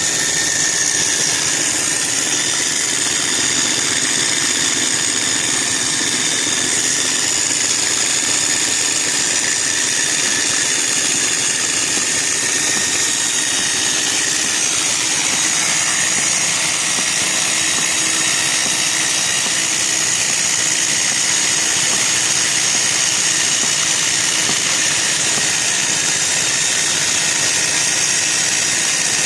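Hand-held rock drill boring into marble, running steadily without a break.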